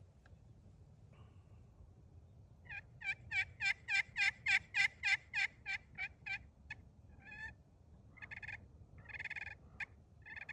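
Titanium-surface turkey pot call played with a laminate striker. It gives a long, evenly spaced run of about fifteen yelps, each note breaking between a low and a high pitch, then a few shorter, scattered notes toward the end.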